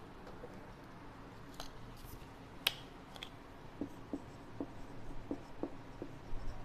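Marker writing on a whiteboard: a run of short stroke sounds and taps as a word is written, starting a little under four seconds in. A single sharp click comes about two and a half seconds in.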